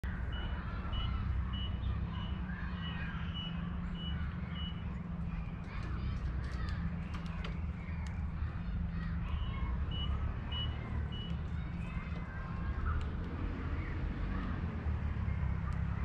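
Steady low rumble of a vehicle engine with a reversing alarm giving high, evenly spaced beeps, a little under two a second, for the first few seconds and again around ten seconds in. Scattered bird chirps and a few light clicks sound over it.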